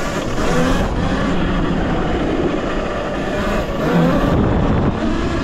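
Talaria Sting electric dirt bike under way: wind rushing over the microphone and tyres on the dirt, with the electric motor's whine gliding up and down as the rider speeds up and eases off.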